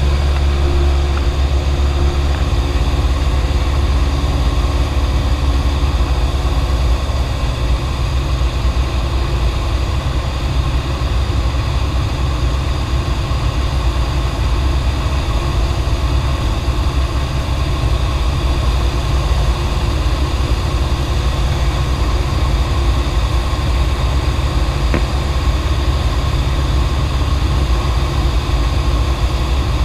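Cessna 172's piston engine and propeller droning steadily in flight, heard from inside the cockpit.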